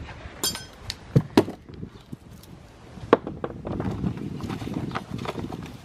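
Metal car parts and tools being handled in an engine bay: a few sharp metallic clinks and knocks, then a stretch of rustling and scraping with small clicks in the second half.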